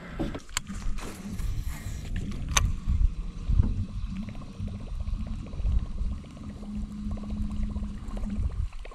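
Steady low rumble with a couple of sharp knocks in the first few seconds, then the fast, fine ticking of a baitcasting reel being cranked to retrieve the line, with a low hum under it near the end.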